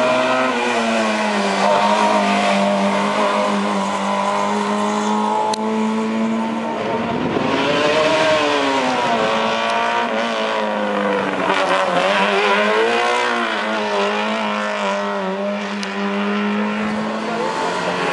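Historic racing cars on a hillclimb, their engines running hard one after another through a hairpin. Engine pitch sweeps up and down twice in the middle as a car brakes, changes gear and accelerates away.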